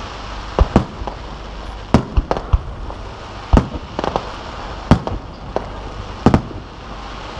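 Aerial fireworks shells bursting: a string of sharp booms at uneven intervals, several of them close together, over a steady background hiss.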